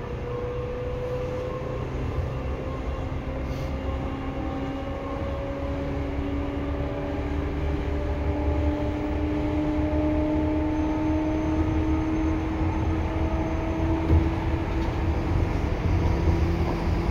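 Seibu 2000 series electric commuter train running: the motor and gear whine rises slowly in pitch as the train gathers speed, over a steady low rumble of the wheels on the rails.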